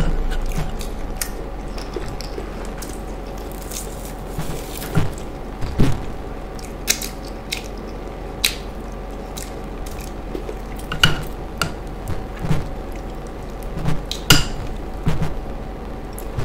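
Close-miked wet, squishy sounds of soft ripe plantain being squeezed apart by gloved fingers and scooped through fish stew, with scattered sharp clicks and smacks from the spoon and bowl and from eating.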